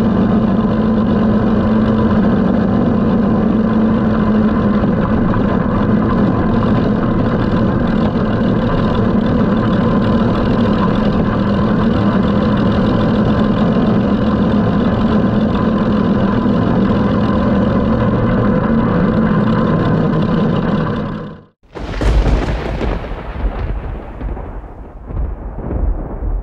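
The 16,000 cc F6 T-head engine of a roadster built on a 1919 Seagrave fire pumper, running steadily as the car drives along. It cuts off suddenly about 21 seconds in, and after a short gap a loud thunderclap breaks in and rumbles away.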